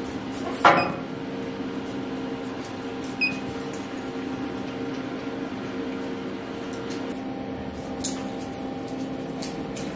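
Steady hum of a CO2 laser engraver's fans and pumps running, with a sharp click about a second in and a short high beep from the control panel buttons about three seconds in. A few faint clicks come later.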